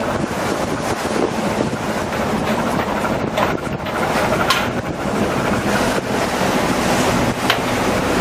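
Wind buffeting the microphone over rough sea water rushing and foaming past a moving ship's hull, a steady loud rush with a few brief ticks.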